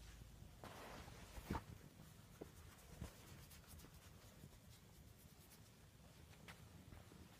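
Near silence with faint rustling of cloth and a few soft knocks, the loudest about a second and a half in.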